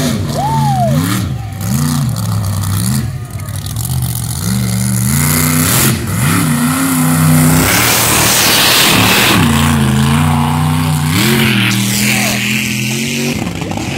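Hammerhead mega truck's engine revving hard again and again, its pitch rising and falling as the throttle is blipped. Midway there is a loud rushing noise from the spinning tyres and flying mud.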